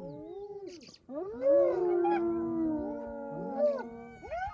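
Several spotted hyenas calling at once in a chorus of overlapping wails that rise, hold and fall. The calls swell in about a second in.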